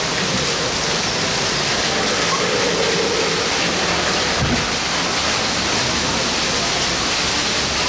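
Steady hiss of steam from a ride-on live-steam miniature locomotive, with a single brief knock about four and a half seconds in.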